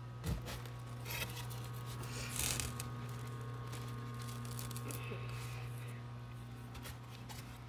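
Handling noises from a foam egg incubator and its plastic egg tray as eggs are moved in and out: a few knocks and scrapes in the first three seconds, over a steady low hum.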